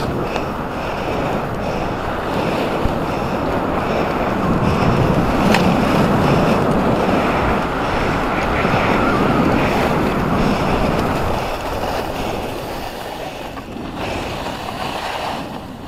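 Skis running fast over groomed, packed snow: a continuous rushing hiss of the skis on the snow and wind on the microphone, building to its loudest through the middle and easing off near the end.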